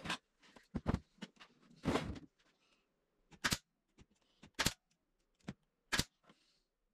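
Irregular wooden knocks and clacks, about eight in all, one a little longer around two seconds in, as wooden pieces of a carved figure are handled and set down on a workbench.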